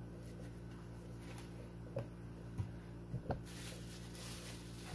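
Light handling noises of model train cars and packing: a few soft clicks and knocks, then a brief rustle near the end, over a steady low hum.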